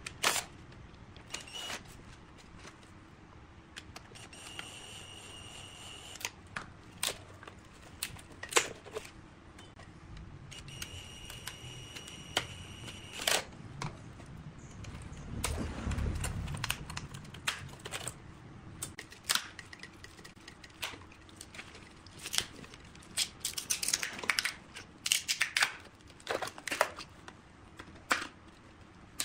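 A cordless drill whining in two short runs of a second or two each as it drives the worm screws of hose clamps, with scattered clicks and taps from handling the metal clamps and the workpiece in between.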